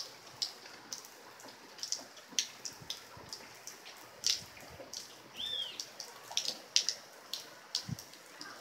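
Light rain, with scattered drops dripping sharply and irregularly close by. One short bird call, rising then falling, comes about five and a half seconds in.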